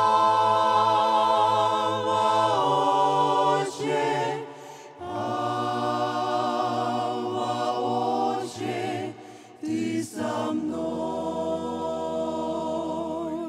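Small mixed vocal ensemble of women's voices and one man's voice singing a slow worship song in close harmony through microphones. They hold long chords with vibrato in about four long phrases, and a low steady note sits underneath in the last few seconds.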